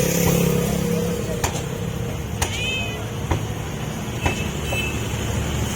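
Stray cat meowing for food: one short high arching meow about two and a half seconds in and a thinner, shorter one near the end, over a steady low traffic rumble with a few sharp clicks.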